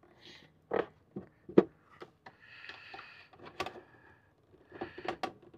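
Brittle plastic retaining clips of a Ford F-250 instrument cluster housing being pried loose with a small pick: a few sharp clicks and snaps, the loudest about a second and a half in, with light scraping of metal on plastic between them.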